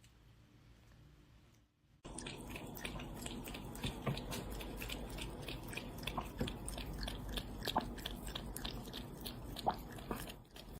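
Chewing: a quick, even run of small crisp crunches, about three a second, starting about two seconds in.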